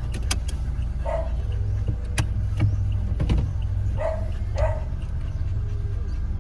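A dog barking three short times, about a second in and twice near four and a half seconds, over a steady low rumble with a few sharp clicks.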